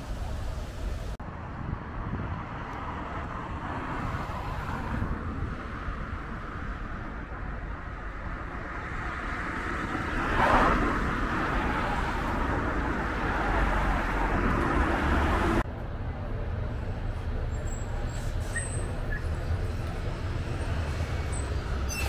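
City road traffic noise: vehicles running past in a steady wash, swelling to its loudest about halfway through. The sound changes abruptly twice, about a second in and about two-thirds of the way through.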